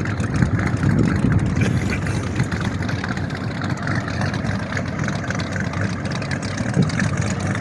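Inboard V8 engine of a classic wooden motorboat running slowly: a steady low rumble.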